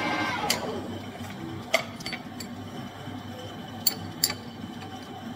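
Manual lathe spinning down, then a handful of sharp metallic clinks at uneven intervals as tools are handled on the lathe.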